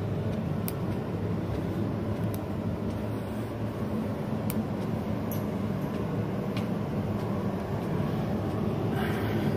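Steady low hum of building machinery with a few faint clicks about every two seconds.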